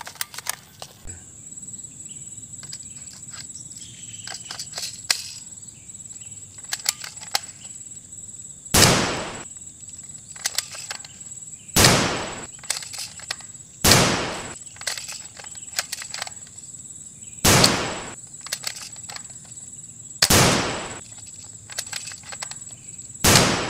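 Toy M4-style rifle fired six single shots a few seconds apart, each a sharp crack with a short fading tail, after some light clicks of handling. Insects trill steadily and high-pitched throughout.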